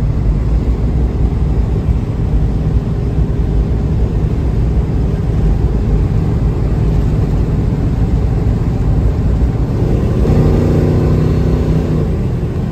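Plymouth Duster's 360 small-block V8 running at cruising speed on the open road, with tyre and wind noise, heard from inside the car. About ten seconds in the engine note swells briefly, then settles.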